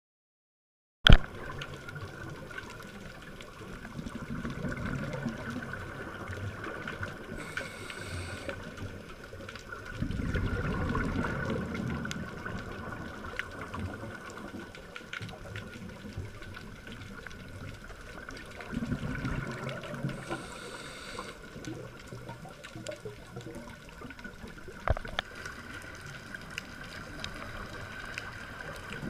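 Underwater ambience recorded by a diving camera: a steady watery murmur with a scuba diver's regulator breathing, exhaled bubbles rising in low rumbling bursts every several seconds. A sharp click about a second in.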